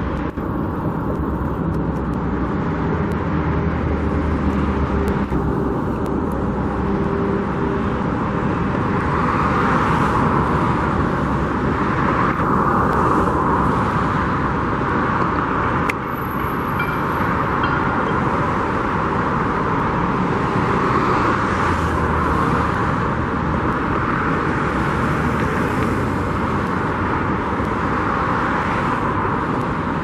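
Steady road traffic, with vehicles passing and the noise swelling several times. A low engine hum stands out for the first several seconds.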